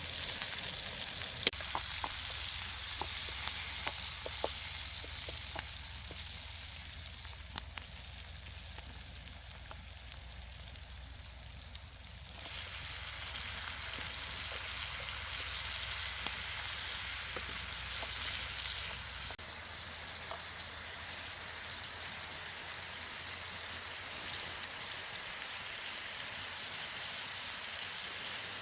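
Food sizzling over a campfire: a steady hiss with scattered sharp crackles in the first half. The hiss changes abruptly about twelve seconds in and again about nineteen seconds in.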